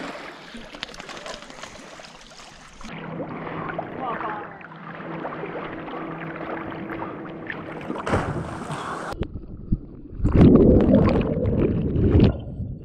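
Water and wind noise at the river's surface, then, about ten seconds in, a louder stretch of muffled underwater rushing and bubbling as the camera goes under.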